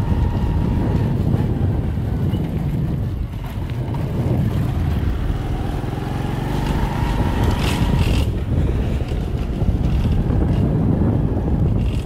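A moving vehicle: a steady low engine and road noise with wind buffeting the microphone. A fainter higher whine rises and fades at the start and again about seven seconds in.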